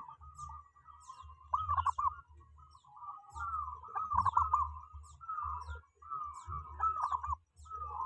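Zebra dove (perkutut) cooing in several husky, rolling phrases near 1 kHz, with faint high chirps of small birds behind it.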